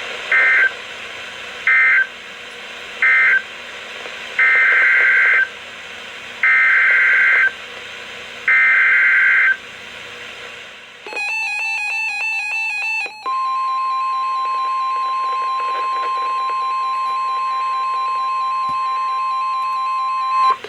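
NOAA Weather Radio emergency alert signalling on a weather radio receiver. First come three short screeching SAME data bursts and then three longer ones, about a second each: the end-of-message code closing the last warning, then the header of a new one. A couple of seconds of the receiver's warbling alert beeping follow, then the steady 1050 Hz warning alarm tone for about seven seconds, which cuts off just before the announcement.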